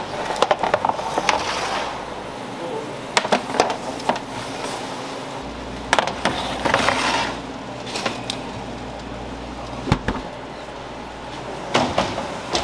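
Metal sheet trays scraping and clanking as they are slid onto the stone decks of a Debag commercial deck oven, with a series of sharp knocks and a heavier knock toward the end, over a steady low hum.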